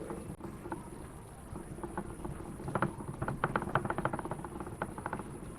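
Small metal parts and tools clicking and clinking as they are handled during a brake master cylinder strip-down, with a quick run of sharp clicks from about halfway through.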